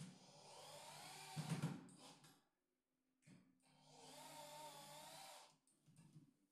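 Corded electric drill boring into a laminated cabinet panel, in two runs: one lasting about two and a half seconds, then a short pause and a second run of about two seconds. The motor's whine wavers in pitch as the bit loads up in the board.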